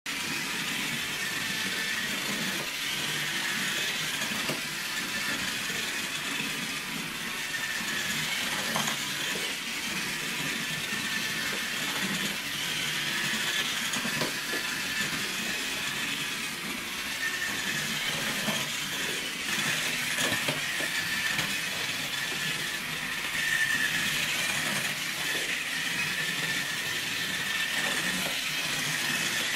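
Slot-car monster truck running around a slotted track: a steady high electric-motor whine with the rattle and clicking of the truck's guide and pickups in the slot and copper rails.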